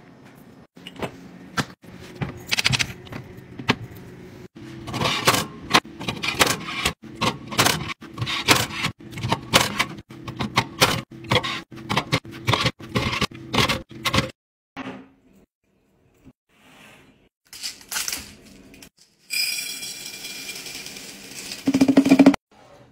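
Handling sounds of kitchen containers: a long run of sharp clicks, knocks and clatters as caps and aluminium cans are set in place in a wire can rack, then fewer scattered knocks. Near the end comes a steady rattling hiss of small candy beads poured into a glass jar, which stops abruptly.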